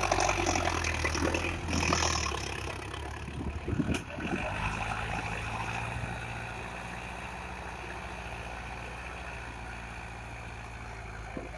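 Sonalika Sikander 750 tractor's diesel engine running steadily while it pulls a 13-tine cultivator through soil. It is loudest for the first couple of seconds as it passes close by, then settles to a steady, fainter hum as it pulls away.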